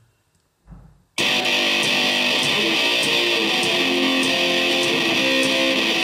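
JBL Clip portable Bluetooth speaker playing guitar-driven music with a steady beat. The music starts abruptly about a second in, after a short near-silent pause with one soft low thump.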